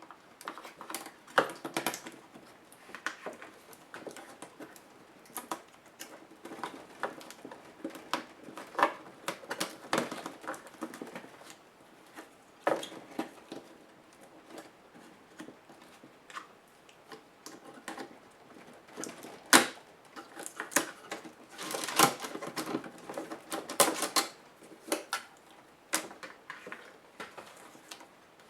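Irregular sharp clicks, taps and light rattles of a Toshiba L655 laptop's plastic and metal parts being handled and worked apart by hand.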